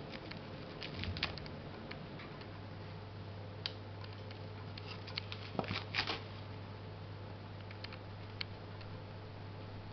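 Small scattered clicks and scratches of a wooden skewer poking into perlite-mixed potting soil in a plastic seedling tray, with a short louder cluster about six seconds in, over a faint steady low hum.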